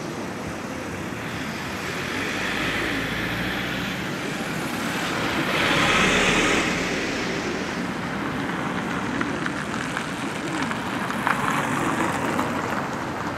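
City street traffic, with a minibus driving past close by: its engine and tyre noise swell to the loudest point about six seconds in and then fade back into the general traffic.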